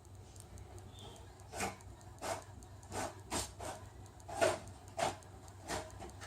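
Printer running a print job: a series of short strokes about every two-thirds of a second over a low steady hum.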